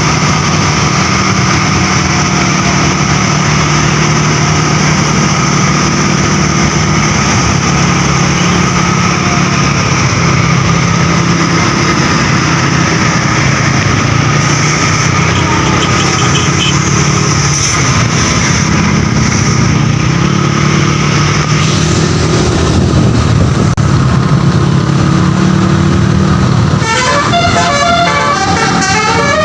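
Steady engine and road noise of vehicles on the move. About 27 seconds in, the Jempol Trans bus's basuri telolet horn starts playing a fast melody of shifting notes.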